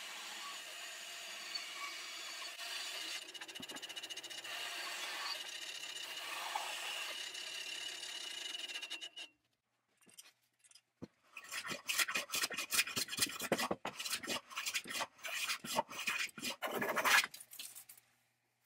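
Bandsaw cutting a wooden board: a steady sawing noise with a high tone, which cuts off suddenly about nine seconds in. After a short pause comes a quick run of hand-plane strokes shaving the end of a wooden part.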